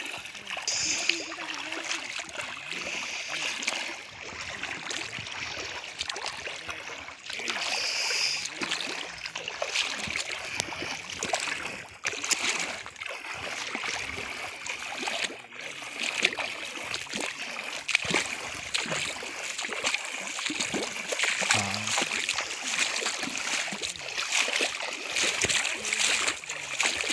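Footsteps wading through ankle-deep river water: a continuous run of splashes and sloshes as feet lift and drop through the shallows.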